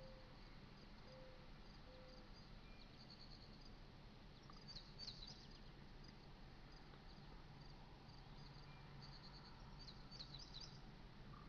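Faint outdoor ambience: high chirps in a few short bursts from small birds and insects, over a faint steady low hum.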